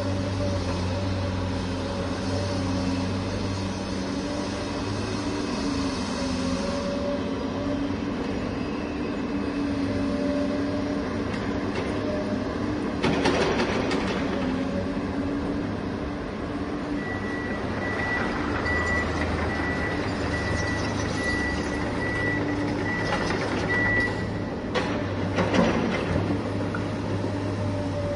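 Hydraulic RC construction machinery running with a steady motor and pump hum. There is a louder rush of noise about 13 seconds in and again near 25 seconds. In the second half a high beeping repeats for several seconds.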